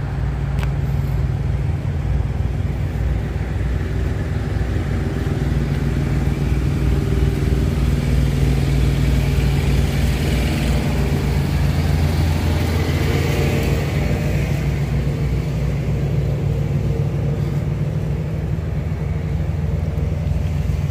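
Diesel engine of a parked semi truck idling, a steady low rumble that grows a little louder in the middle and then eases off.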